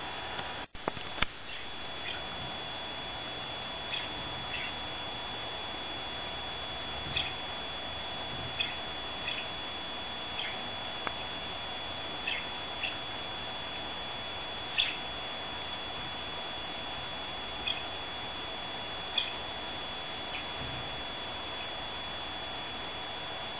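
Budgerigar giving short, high chirps, one every second or two, over a steady hiss with a thin high whine; a single sharp click about a second in.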